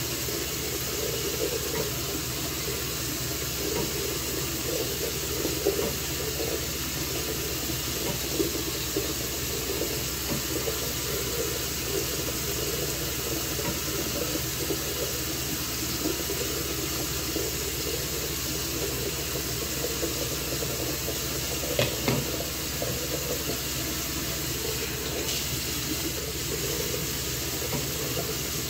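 Water running steadily, an even rushing noise that does not change.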